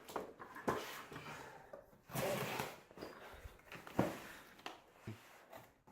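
A box of shock absorbers being opened by hand: scattered sharp clicks and short rustles of cardboard and packaging.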